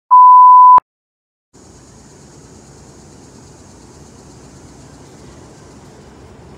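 A loud, pure electronic beep at one steady pitch, like an editing reference tone, lasting under a second and ending in a click. After a brief silence, steady low background noise with a faint high hiss.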